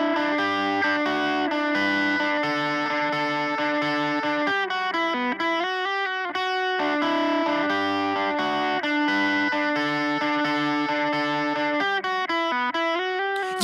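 Electric guitar alone, picking a repeating melodic riff with effects, as the intro of a rock song demo. The same phrase comes round again about halfway through.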